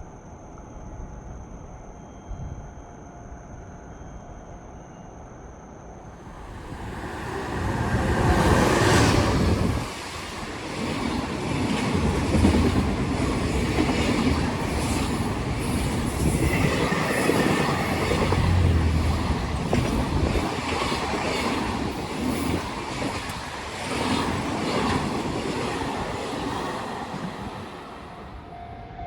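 A JR Freight EF210 electric locomotive hauling a container freight train passes. The sound builds from about six seconds in and is loudest as the locomotive goes by, then the wagons roll past with rhythmic wheel clatter over rail joints, fading near the end.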